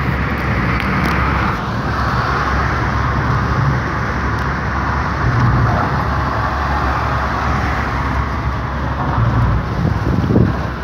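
Steady road noise and engine hum of a moving car, heard from inside the cabin, with rushing air.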